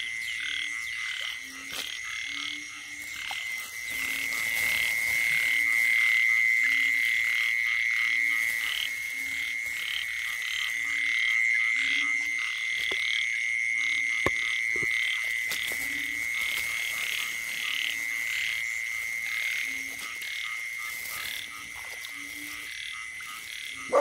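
A frog chorus with narrow-mouthed frogs among the callers. A steady high-pitched trill runs over short low croaks that repeat about once a second, and there is a single sharp click about halfway through.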